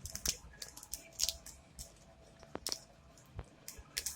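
Pokémon cards and their foil booster-pack wrapper being handled: irregular short crinkles and rustles with a few sharp clicks.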